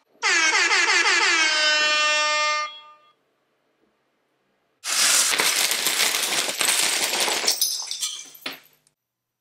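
A clattering cascade of plastic Lego bricks spilling onto a hard surface, dense at first and thinning into scattered clicks before it stops. Before it, a separate pitched sound drops in pitch, then holds for about two and a half seconds and cuts off.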